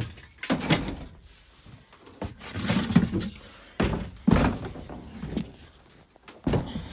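Things being lifted off a wooden crate and set down: a series of heavy thumps and knocks with handling rustle, about four in all, the loudest about three and four seconds in.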